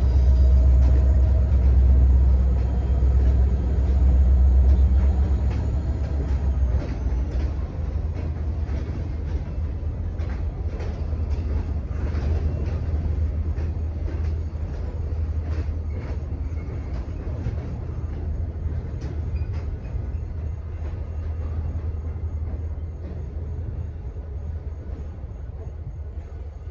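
Freight train rumbling, heaviest for the first six seconds and then easing off, with scattered clanks and clicks from the cars.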